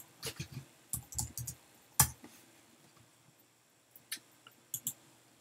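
Computer keyboard typing: a quick run of keystrokes, then one sharp key press about two seconds in, with a few more clicks near the end.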